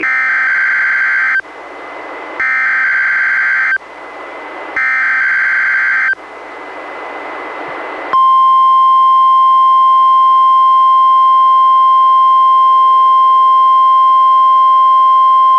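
NOAA Weather Radio SAME alert header: three screechy digital data bursts of about a second and a half each, separated by radio hiss, followed from about eight seconds in by the steady 1050 Hz warning alarm tone. It is played by a Reecom R-1630 weather radio and marks the Required Weekly Test.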